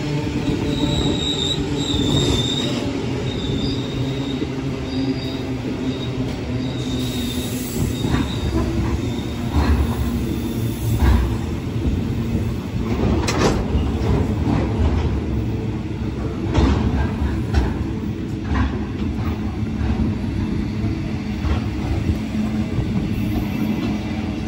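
Container freight train's wagons rolling past close by with a steady rumble. A thin, high wheel squeal comes and goes through the first several seconds, and a series of sharp wheel clacks follows through the middle stretch.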